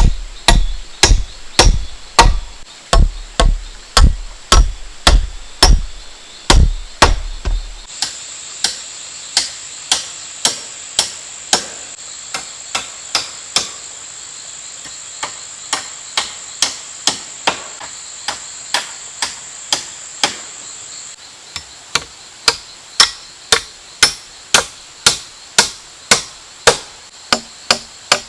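Steady series of hand-tool blows on wood, about two a second, heavy and deep for the first few seconds, then lighter through the middle before growing louder again near the end. A constant high-pitched insect buzz runs underneath.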